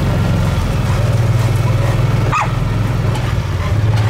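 Vehicle engine running steadily, with one short, sharp dog yip about halfway through.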